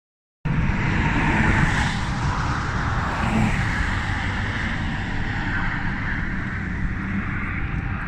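Steady rush of road traffic on the bridge's highway, starting about half a second in and running on without a break.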